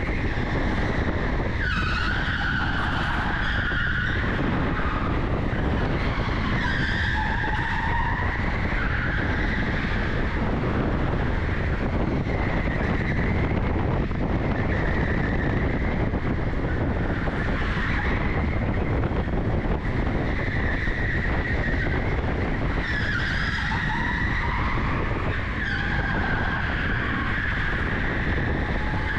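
Onboard sound of an electric go-kart lapping an indoor track at speed: a steady rush of motor and rolling noise, with tyres squealing through the corners in spells of a second or two every few seconds.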